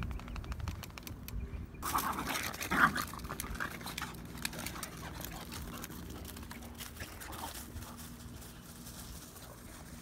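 A small dog growling at another dog: a fast rasping growl, then a louder snarling outburst about two to three seconds in. Wind rumbles on the microphone at first, and it is quieter outdoor background after that.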